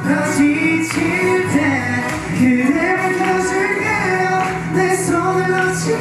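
A group of voices singing a song together, with hand claps keeping time.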